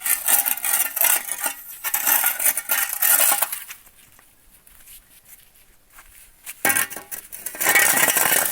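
A metal shovel scraping and clinking through gritty sand in quick strokes, first for about three and a half seconds, then again near the end.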